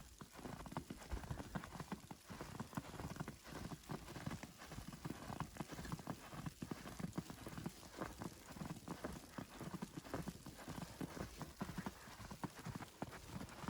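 Footsteps crunching through fresh, powdery snow at −10 °C, in a steady walking rhythm.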